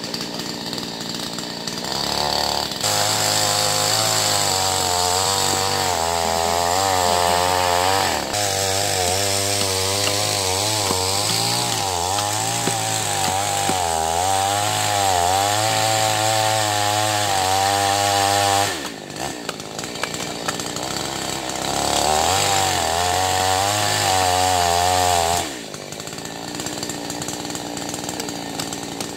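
Two-stroke chainsaw cutting agarwood: it revs up a few seconds in and runs hard under load with a wavering pitch for a long stretch. It drops back to idle, revs up again for a few seconds, then idles near the end.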